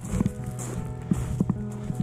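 Footsteps on a wood-chip path, a sharp step about every half second, with music of long held notes laid underneath.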